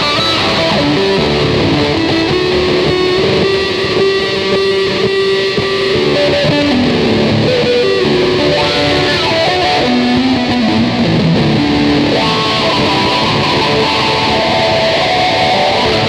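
Ibanez electric guitar played freely, with held notes and a wandering melodic line that steps up and down in pitch.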